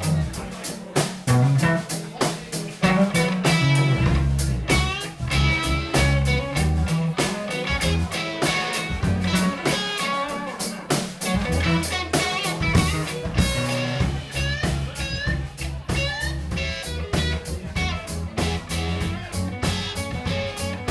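A live rock band playing: guitar over a steady drum beat, with low bass notes moving underneath.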